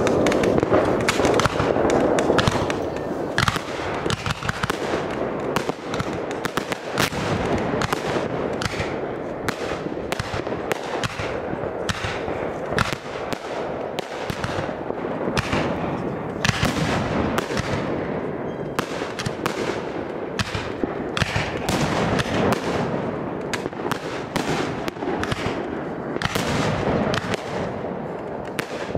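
Aerial fireworks going off in quick succession: a dense, continuous run of sharp bangs from shells launching and bursting, several a second.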